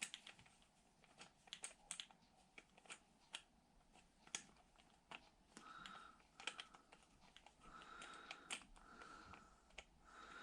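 Faint small clicks and taps of metal tools working on a small-engine carburetor while trying to work loose a stuck main jet. In the second half a faint steady tone comes and goes several times.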